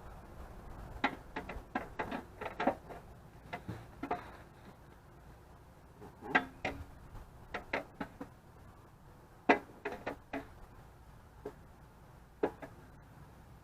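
Irregular clicks and clinks of hand tools and metal parts being worked on: about a dozen short, sharp taps, some in quick clusters, with gaps of a second or two between them.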